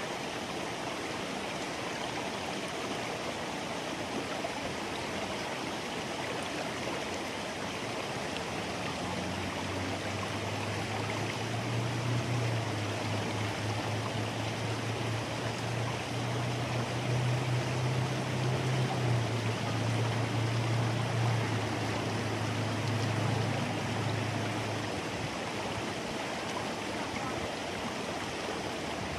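Steady rushing of running water, like a stream. From about nine seconds in until about twenty-five seconds, a low steady hum sits beneath it.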